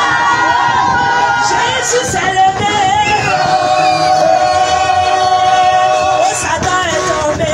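Group of voices singing a worship song with music, one note held long through the middle, over crowd noise.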